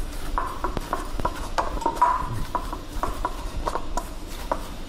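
Hands kneading a stiff flour dough in a stainless steel bowl: a run of uneven knocks, about three a second, with a metallic ring from the bowl after several of them.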